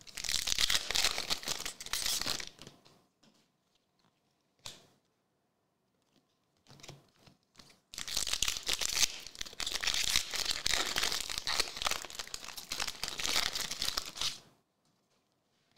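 Foil trading-card pack wrappers being torn open and crinkled. The sound comes in two long stretches, about three seconds and then about six seconds, with a quiet pause between them.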